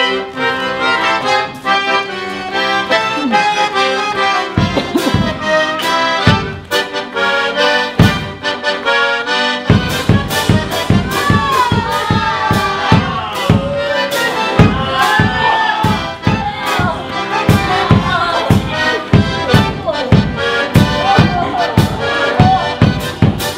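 Accordion playing chords and a tune. About ten seconds in, a steady drumbeat joins it.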